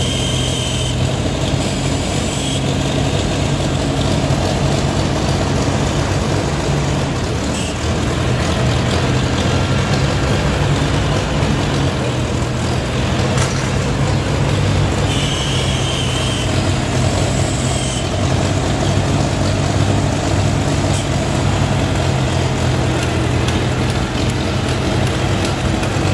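1952 Farmall Super A tractor's four-cylinder gasoline engine running steadily at low speed, with a short dip in its note about halfway through.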